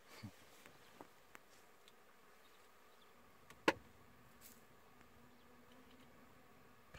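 Faint insect buzzing, a low steady hum that grows in the second half. A single sharp click comes about halfway through.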